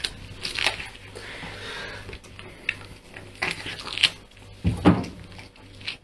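A cat chewing raw zucchini, with irregular wet crunches and smacks. A single dull thump comes about three quarters of the way through.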